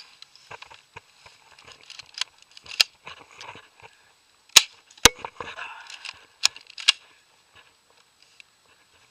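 Airsoft gun firing about six single shots, sharp cracks spaced unevenly over roughly five seconds, with light handling noise between them.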